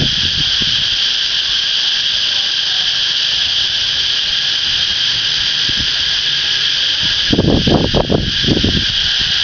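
Cicadas singing in a steady, unbroken high-pitched buzz. A few low bumps break in about seven to eight and a half seconds in.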